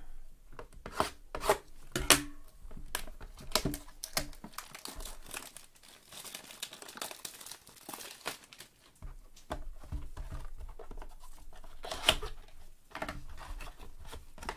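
Wrapping on a Topps Gypsy Queen trading card blaster box being torn and crumpled, with rustling and sharp cardboard taps as the box is opened and handled; the loudest tap comes near the end.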